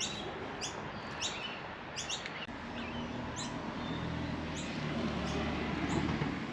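A bird repeating short high chirps, each one dropping in pitch, about one or two a second. A low hum rises under them from about halfway.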